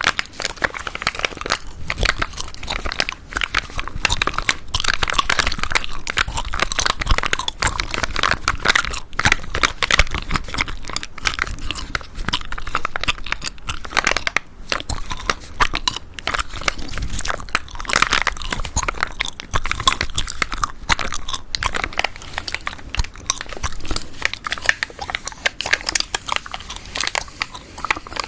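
Chewing gum being chewed close to the microphone: a continuous dense run of small sticky clicks and crackles.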